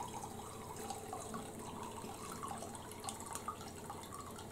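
Used frying oil trickling slowly from a tilted frying pan into a ceramic pot: a faint, steady pour with small ticks.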